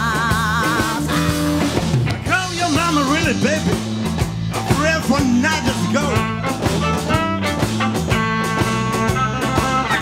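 Live rock music: a woman's sung note with vibrato ends about a second in, then an electric violin plays a lead of swooping, sliding notes over electric guitar and a steady rock backing.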